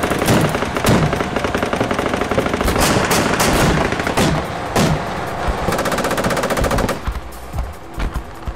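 Sustained automatic machine-gun fire, a rapid unbroken stream of shots. About seven seconds in it eases off to a few scattered shots.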